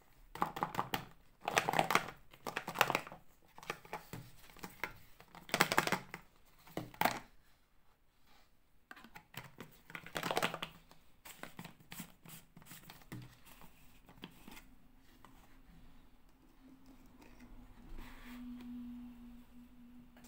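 Thin clear plastic bottle-shaped container crinkling and crackling as hands turn it over, with the dolls packed inside shifting against the plastic. Several loud bursts of handling noise come in the first half, then softer rustling.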